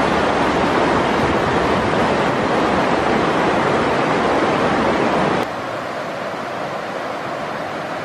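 Steady loud rushing noise with no distinct events, like wind through foliage or moving water. It drops abruptly to a quieter rush about five and a half seconds in.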